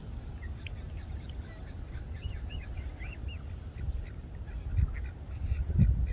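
Black swan cygnets peeping: a rapid string of short, high calls, several a second, over a steady low rumble, with a low thump a little before the end.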